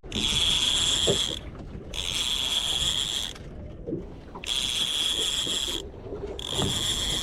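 A high-pitched buzz pulsing on and off, about a second and a half on and half a second off, repeating four times.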